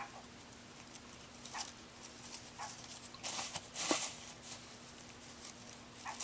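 Soft rustling and crinkling of a small organza gift bag and crinkle-paper confetti handled by hand as the bag is filled: a few scattered crinkles, the loudest a little past three seconds in.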